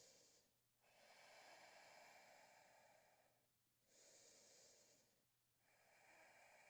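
Near silence with very faint, slow breathing, in and out over a few seconds per breath.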